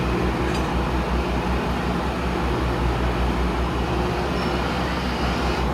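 Steady low rumble of a docked RoRo ferry's running machinery, with an uneven throb in the bass.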